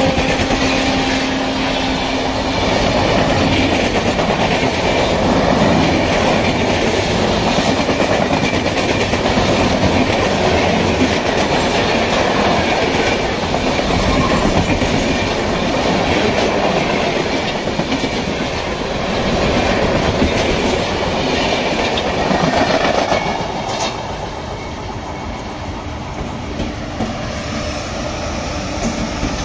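Indian Railways express train passing at high speed on the near track: a loud, continuous rush of wheel and coach noise with rapid clickety-clack over the rail joints. About 23 s in it drops to a quieter rolling rumble.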